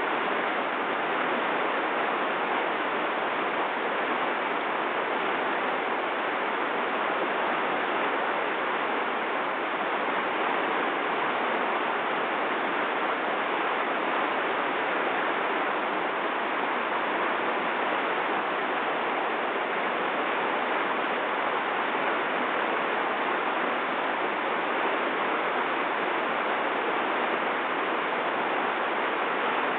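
Whitewater river rapids rushing, a steady unbroken water noise.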